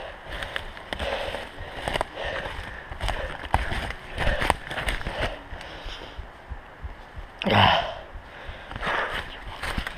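Footsteps of a runner on forest floor and undergrowth, with heavy breathing and the rustle of vegetation brushing past, heard from a head-mounted camera. One louder, brief sound stands out about seven and a half seconds in.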